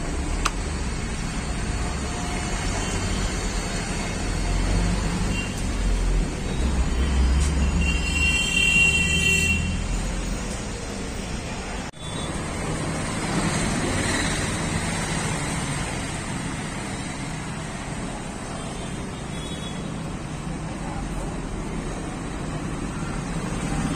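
Road traffic going by: a steady low rumble of passing vehicles, heaviest from about four to ten seconds in, with a brief high-pitched whine about eight seconds in.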